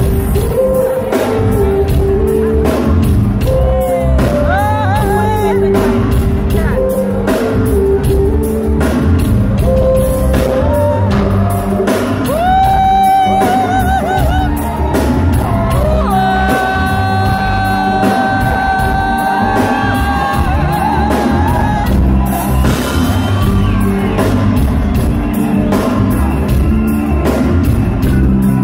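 Live reggae band of drums, bass guitar and electric guitar playing a steady beat, with singing over it.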